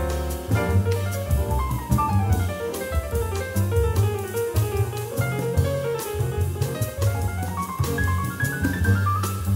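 Small-group jazz: piano, double bass and drum kit playing together, with quick runs of melody notes over a moving bass line and regular cymbal strokes.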